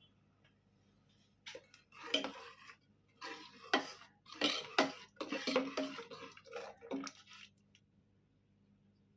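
Metal kitchenware clinking and scraping in a run of irregular strokes for about six seconds, starting about a second and a half in.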